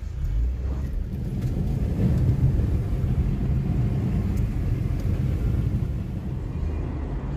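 Car driving, its engine and tyre noise heard from inside the cabin as a steady low rumble that swells just after the start.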